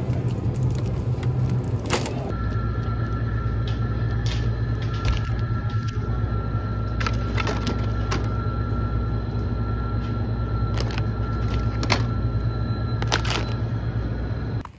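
Steady low hum of refrigerated store display cases and freezers, with faint steady high tones joining about two seconds in. Scattered short clicks and rustles of packaged goods being handled.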